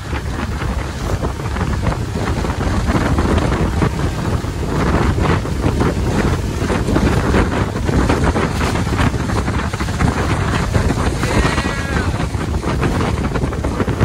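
Heavy wind buffeting the microphone aboard a motor yacht running at speed, over the rush of water along the hull.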